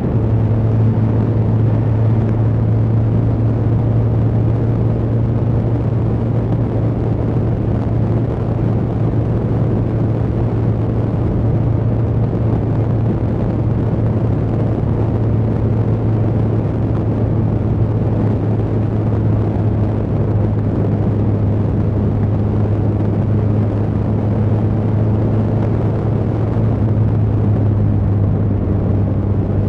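Suzuki GSX1300R Hayabusa's inline-four engine running at a steady cruise while riding, over wind and road noise. The engine note holds nearly constant, dipping slightly midway.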